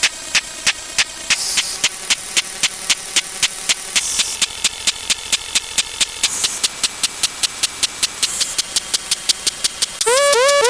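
Edited sound effects: a fast, even train of sharp clicks that gradually speeds up, with a short burst of hiss every two seconds or so. Near the end a rising chirp tone comes in, repeated several times in quick succession.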